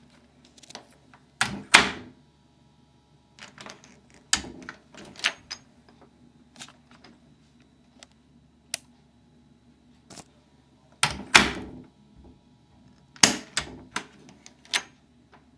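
Irregular knocks, clicks and rustles, as from handling a camera. The loudest come about 2 seconds in and again about 11 and 13 seconds in, with a faint low hum between them.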